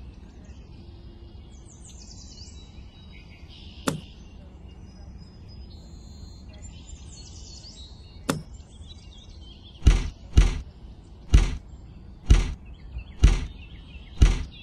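Two sharp clicks, then six heavy thumps about a second apart in the second half, with birds chirping faintly in the background early on.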